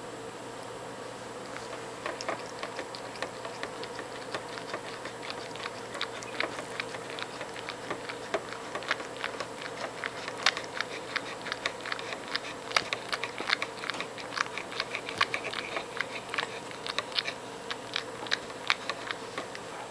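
Cat licking the edge of a George Foreman grill: a quick, irregular run of small wet tongue clicks, several a second. It starts about two seconds in and gets denser further on.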